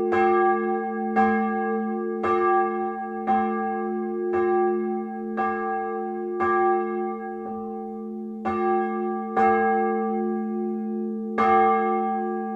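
Single swinging bronze church bell cast by KID Jesenice in 1922, its clapper striking about once a second with a long, humming ring after each stroke. The strokes grow uneven, with weaker and skipped strikes in the second half, and a last strike near the end is left ringing out.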